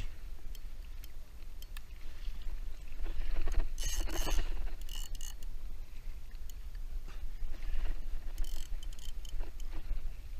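Wind rumbling on the camera microphone and water sloshing around a kayak hull, with scattered clicks and short rushes of noise as a large spinning reel is wound in against a hooked fish.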